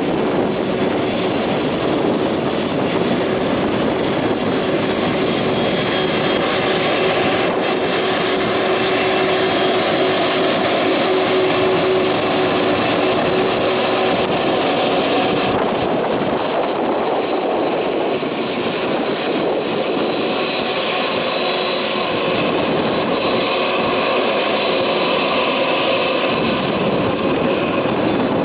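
Boeing 767-400's twin jet engines at taxi power as the airliner rolls along the taxiway: a steady rumble with a high whine. The sound changes abruptly about halfway through.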